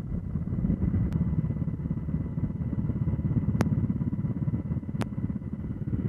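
An engine running steadily, with a fast low flutter, a faint steady whine and a few faint clicks.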